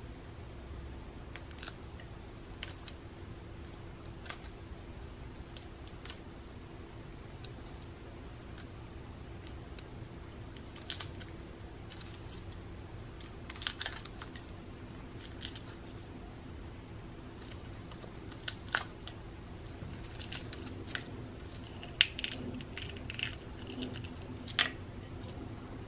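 Shell of a hard-boiled egg being peeled by hand: small crackles and ticks of the shell cracking and lifting away. They are sparse at first and come thicker in the second half.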